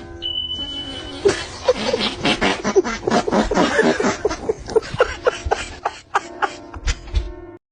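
A steady high beep lasting about a second, then a person laughing hard in a long run of short bursts. The laughter cuts off suddenly near the end.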